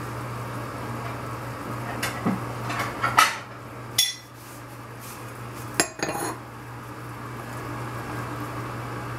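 Dishes and cutlery clattering: a run of clinks and knocks about two to three seconds in, a sharp single knock at four seconds, and another pair of knocks near six seconds, with a white dinner plate being set down near the stove.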